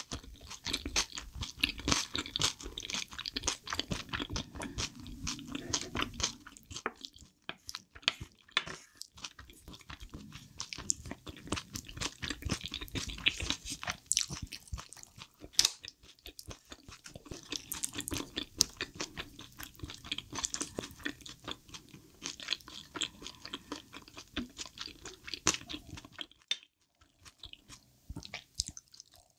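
Close-miked chewing of spicy chicken feet in broth: continual wet mouth sounds with many sharp clicks and bites, easing off near the end.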